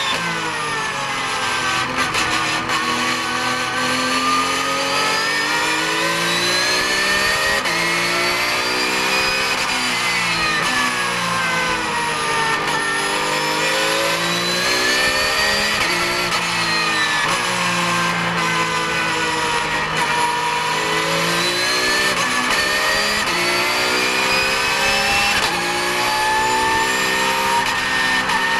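Porsche 991 GT3 Cup race car's flat-six engine heard from inside the cockpit, its pitch sweeping down and back up about four times as the car slows for corners and accelerates out, climbing steadily near the end.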